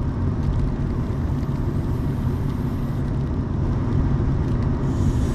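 Steady road and engine rumble inside a moving car's cabin. A soft breathy hiss near the end as a cloud of vape vapour is exhaled.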